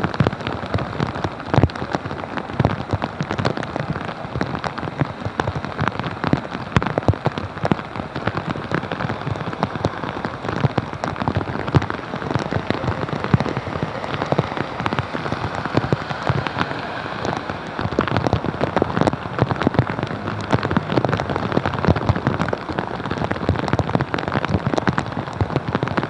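Heavy cloudburst rain falling onto a flooded street: a dense, steady patter of drops with many sharp, close drop hits.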